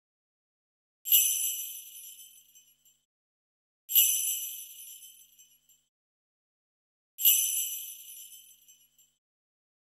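Jingle bells shaken three times, about three seconds apart; each shake rings out sharply and fades away over about two seconds.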